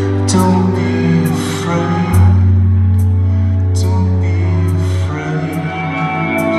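A live band plays a slow passage, with held bass notes and sustained chords under regular cymbal strokes. The bass changes note about two seconds in and again near the end.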